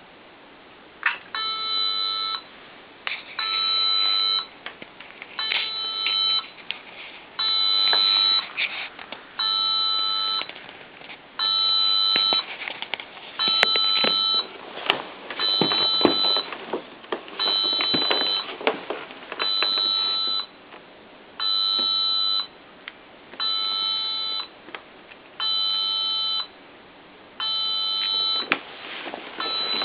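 LEGO Mindstorms robot's speaker beeping a repeating tone, about one beep every two seconds, each about a second long. It is the programmed beeping noise that two touch sensors are meant to turn off.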